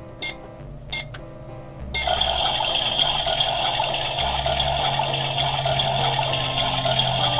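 Toy oven's electronic cooking sound, started by a couple of button clicks: from about two seconds in, a steady hiss with high ringing tones, over background music.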